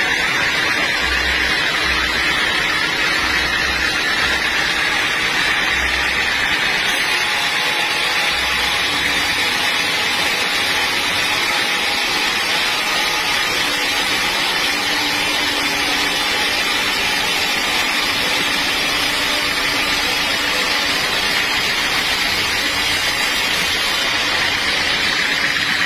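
Sawmill band saw running and cutting lengthwise through a log: a loud, steady noise of the blade and machinery that does not let up.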